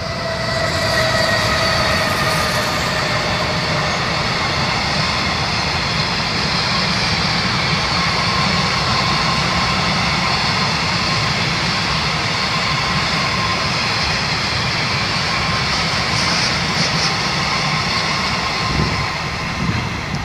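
Freight train loaded with metal tubes rolling past behind a BB 37000 electric locomotive, a steady loud rumble and rattle of wagon wheels on the rails. A faint whine falls in pitch over the first few seconds, a few clacks come near the end, and the sound drops away at the very end as the train clears.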